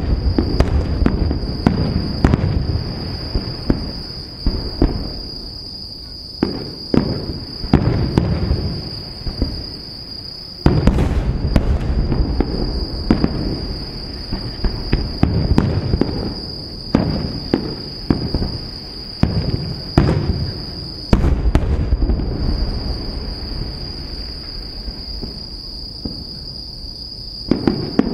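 Aerial fireworks display: a rapid run of shell bursts, sharp bangs with a low rumble and crackle between them, with heavier salvos about 11 and 21 seconds in. A steady high-pitched tone runs underneath throughout.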